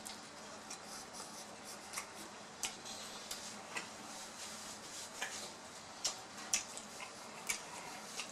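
Close-miked chewing and lip smacking while eating a bite of saucy barbecued rib: irregular sharp wet clicks, louder and more frequent in the second half.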